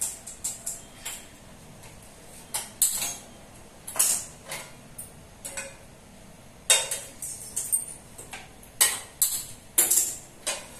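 Clatter of a steel slotted spoon and a non-stick frying pan against a gas stove's metal grates: a string of sharp, irregular clinks and knocks, several of the loudest coming close together in the second half.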